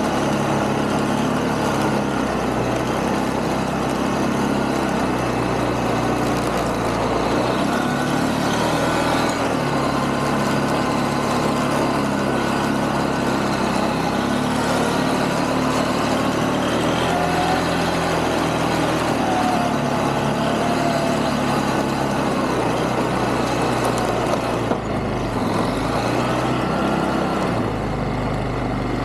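ATV engine running steadily in low gear as the quad climbs through snow, its pitch rising and falling a little with the throttle.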